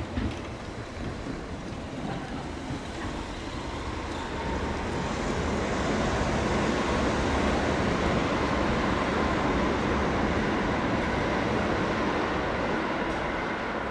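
Seibu Tamagawa Line electric train running over the level crossing: a steady rush of wheel and running noise that grows louder about four seconds in and stays loud, easing slightly near the end.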